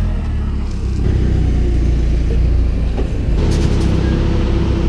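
A motor vehicle engine running with a steady low rumble. About three and a half seconds in, a few light rattles and a steady whine join it.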